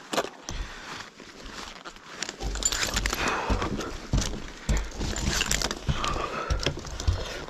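Climbing spurs knocking into a wooden utility pole with repeated thuds as a lineman climbs it on a pole strap, joined about two and a half seconds in by louder heavy breathing.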